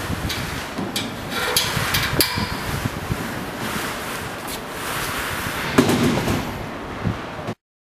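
Scattered sharp metal clicks and knocks from fitting the tension spring on an elevator landing door's frame, with a brief ringing tone about a second and a half in and a louder knock near the end, then the sound cuts off suddenly.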